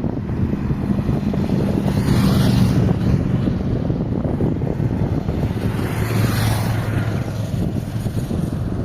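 Wind buffeting the microphone with a heavy low rumble, swelling into two gusts, one about two seconds in and one about six seconds in, over a steadier low hum.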